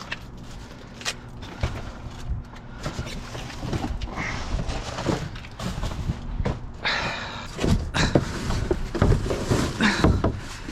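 Rummaging through a dumpster: irregular knocks, clunks and rustling, over a low steady hum in the first half.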